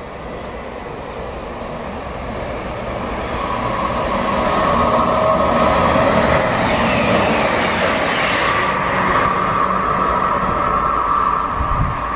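A diesel passenger train approaching and passing at speed, growing louder to a peak about five seconds in, with a steady high whine while the carriages go by.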